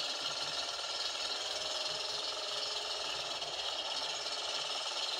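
Small engine of an outrigger boat running steadily under way, a fast, even mechanical rattle.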